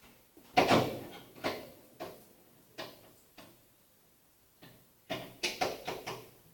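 A series of irregular sharp knocks and clunks: the loudest about half a second in, single knocks over the next few seconds, then a quick cluster of four near the end.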